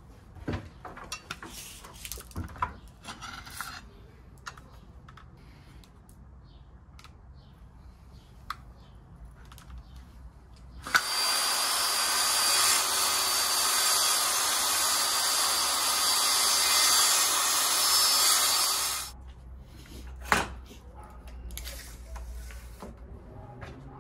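Handheld circular saw cutting through a sheet of plywood: it starts with a sharp click about eleven seconds in, runs with a steady high whine through the cut for about eight seconds, then stops. Before and after, light knocks and clicks as the board and saw are handled.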